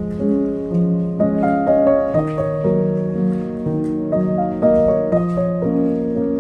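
Background music with piano.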